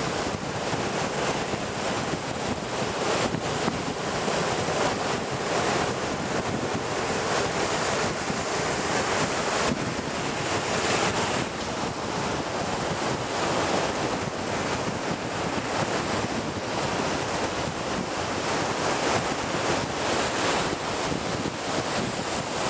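Surf washing up a sandy beach, a steady rush of breaking waves that swells and eases, with wind buffeting the microphone.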